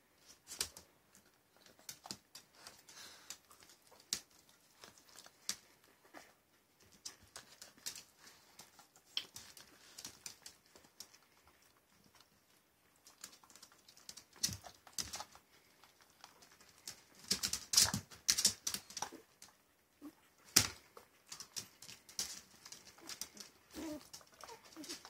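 Irregular clicks and taps of a small dog's claws on a tile floor and its teeth on a small rubber ball toy, with a louder, denser run of clicks a little past the middle.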